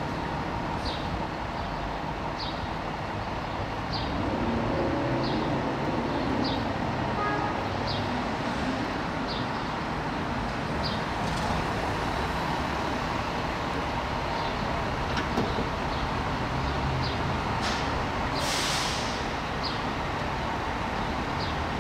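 Steady city street traffic noise with faint, high ticks repeating about once a second, a low vehicle rumble a few seconds in, and a brief hiss near the end, like an air brake releasing.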